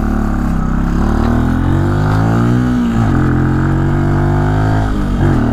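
Benelli TNT 125's single-cylinder engine pulling under way, its pitch rising over the first couple of seconds. The pitch drops sharply about three seconds in, then holds steady, with a brief dip near the end.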